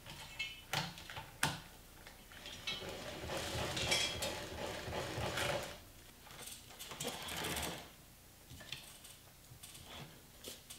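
Plastic chain of a backdrop kit's chain-drive pulley clicking and rattling through the sprocket as it is pulled to turn the paper roll. A few sharp clicks come first, then two longer spells of clatter, then fainter clicks near the end.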